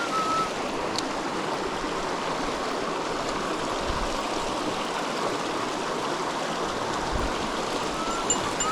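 Mountain stream water rushing steadily, an even wash of sound. A few short whistled notes sound at the start and again near the end.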